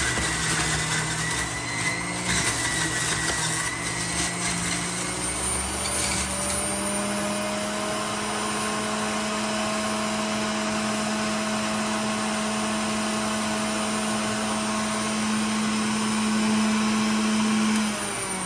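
Hamilton Beach centrifugal juicer running: for about the first six seconds the motor labours with a rough crackle as fruit is pushed through the spinning cutter, then it spins freely with a steady hum that creeps slightly higher. Near the end its pitch starts to drop as the motor winds down.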